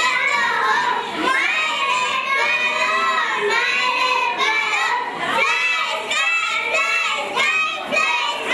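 A group of young boys singing an action song together into stage microphones, their voices bright and half-shouted.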